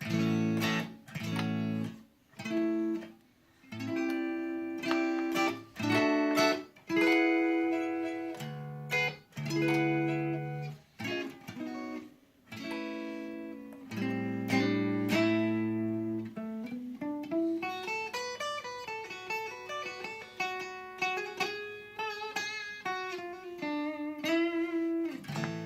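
Squier Stratocaster electric guitar played on its neck pickup: strummed chords and picked notes, then a single-note run with sliding notes from about two thirds of the way in.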